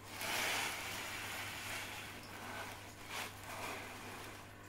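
Rustling and handling noise from small RC truck parts being moved on a workbench, with a short sharp click about three seconds in.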